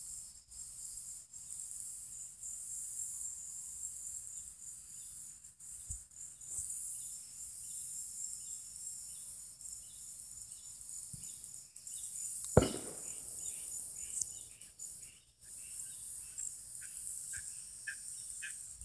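Insects calling in a steady, high, pulsing chorus, with short repeated chirps joining in during the second half. A single sharp knock of handling noise about twelve and a half seconds in.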